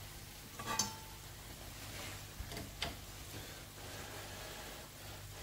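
A few light clicks and taps of a utensil against a non-stick frying pan as a bite of the fried potato dish is scooped out to taste. The loudest tap comes about a second in and two smaller ones near the middle, over a faint steady background hiss.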